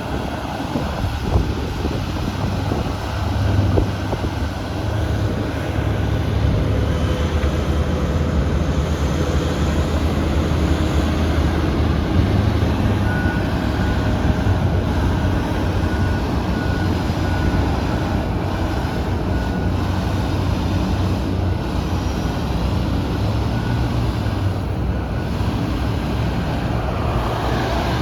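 Excavator's diesel engine running steadily under load, a deep drone that rises and falls a little as it digs. A faint repeated beep sounds for several seconds in the middle.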